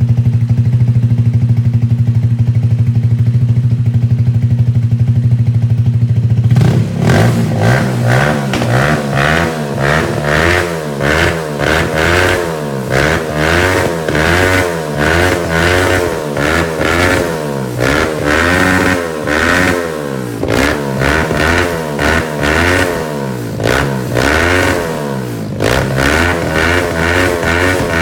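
Shelby cafe racer motorcycle's Lifan four-stroke engine idling with a steady low drone, then revved repeatedly from about seven seconds in, the pitch rising and falling roughly once a second.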